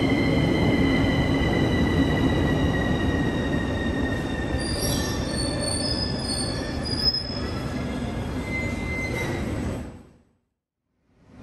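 CAF metro train slowing as it runs into a station: rolling rumble with a whine that falls slowly in pitch, and brief high wheel squeals about halfway through. The sound fades out to silence near the end.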